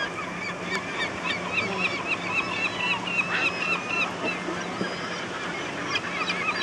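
A flock of gulls calling, many short cries repeating and overlapping, over a steady hiss of running water.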